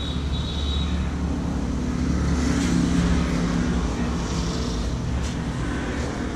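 Street traffic: a motor vehicle running close by, a steady low rumble with an engine hum that swells around the middle and then eases.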